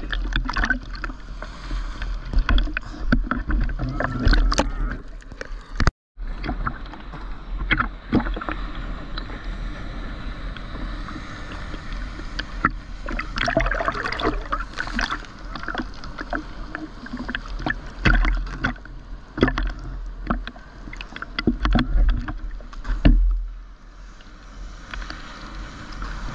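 Sea water sloshing and splashing against a GoPro Hero 9 in its waterproof housing as it bobs at the surface, sounding muffled through the housing. The sound cuts out completely for a moment about six seconds in.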